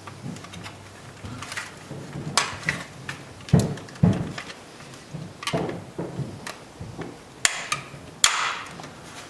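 Irregular sharp clicks, snaps and knocks of hard plastic as a power window switch is pried out of its plastic bezel with a flat-blade screwdriver, with a few duller thuds about three and a half and four seconds in and the loudest snap near the end.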